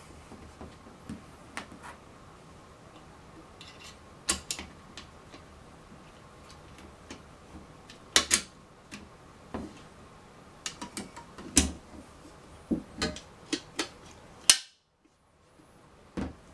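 Metal visor and hinge parts of a visored barbute helmet clicking and clinking as the visor is fitted onto its removable hinges and secured with spring pins, then lowered shut. Irregular sharp metallic clicks, in small clusters, with the loudest about fourteen seconds in; the sound then drops out completely for over a second before one last clink.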